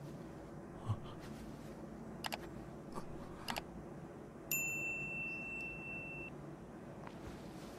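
Notification-bell ding from a subscribe-button overlay: a single bright tone that sets in suddenly about four and a half seconds in and fades out over about two seconds, after a few soft clicks.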